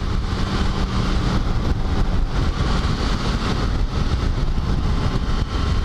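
Motorcycle riding at highway speed, recorded from the rider's helmet: a steady engine drone buried under dense wind rush on the microphone.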